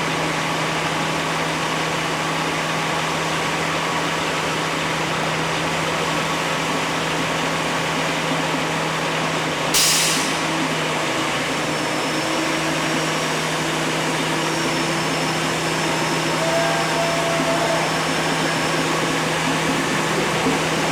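An engine running steadily, with a short, sharp hiss about ten seconds in.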